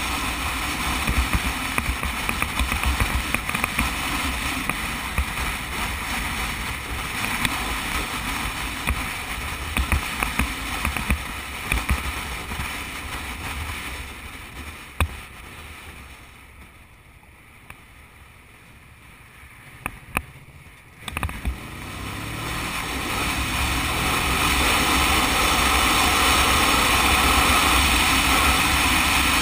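Sport motorcycle riding with heavy wind rush on the microphone over the engine. Past the middle the sound drops away for several seconds as the bike slows, with a few sharp clicks. Then the engine note rises as it accelerates and the wind noise builds back to a steady loud rush.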